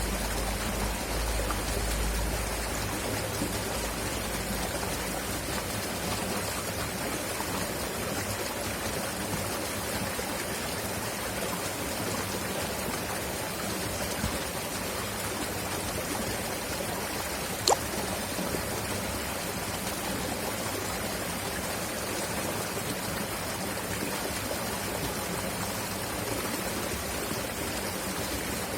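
River water flowing and rushing steadily. A low rumble fades out in the first few seconds, and there is a single sharp click about two-thirds of the way through.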